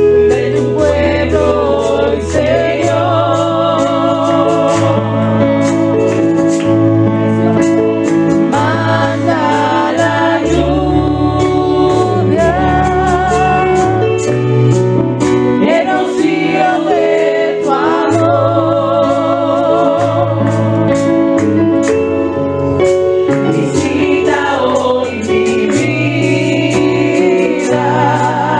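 Live gospel worship song: women singing into microphones, their voices wavering with vibrato, over held low chords and a steady beat.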